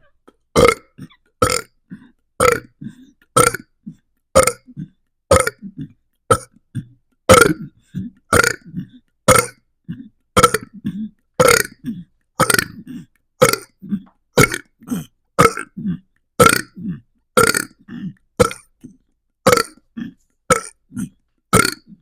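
A person burping over and over, about one loud burp a second, most followed by a quieter, lower sound.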